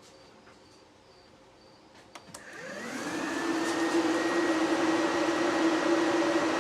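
Electric radiator cooling fans on an LS's fan shroud switching on and spinning up, a rising whine that settles into a steady hum and air rush. They are running on a newly made wiring harness under test. A few small clicks come just before, as the power is connected.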